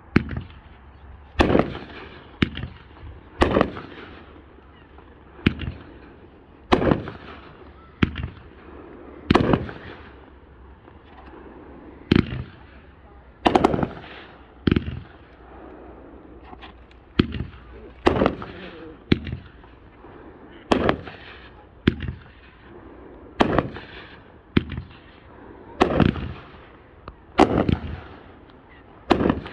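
Fire Thief consumer firework cake firing shot after shot: about twenty sharp reports, roughly one every second or so, with a short lull around the middle. A softer crackling hiss runs between the reports from the strobing falling-leaf effects.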